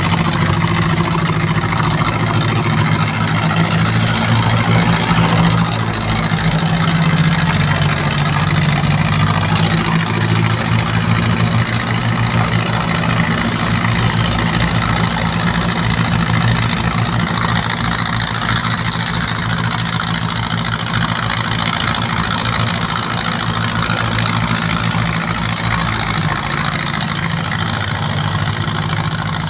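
Ship's engine running steadily with a low, even hum; a little after halfway more hiss joins it.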